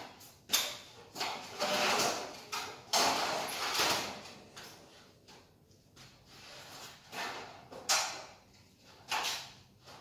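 Metal cable tray parts being handled: irregular scrapes and clanks, with a sharp knock about half a second in, two longer scraping stretches in the first half, and two more sharp hits near the end.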